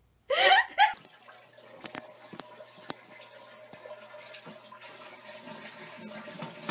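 A cat's loud yowl in two quick pulses near the start, followed by a low steady hum with a faint hiss and a few light clicks.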